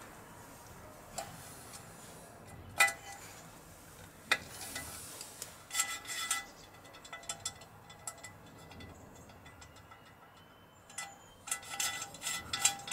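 Metal tools and small parts clinking against the XS650's aluminium engine casing during the oil pump fitting: a few single sharp, ringing clinks, then a quick run of clinks near the end.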